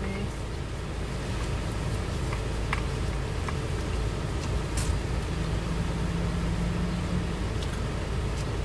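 Steady low rumble of a car idling, heard from inside the cabin, with a few faint clicks of a fork on a takeout bowl and quiet eating sounds.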